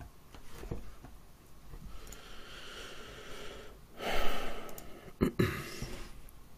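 A man breathing out heavily close to the microphone while smoking a cigarette: two long exhales, the louder one about four seconds in, then a short thump.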